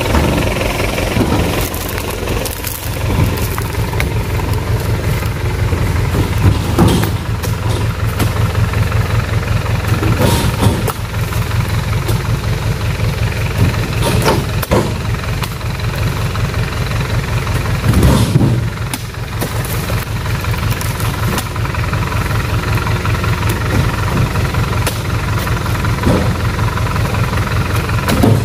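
A pickup truck's engine idling steadily, with a heavy thud every few seconds as oil palm fruit bunches are tossed into the truck bed.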